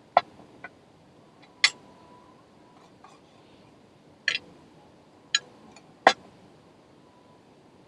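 About six sharp, irregular clicks and knocks of tableware, utensils striking dishes and the table during a meal.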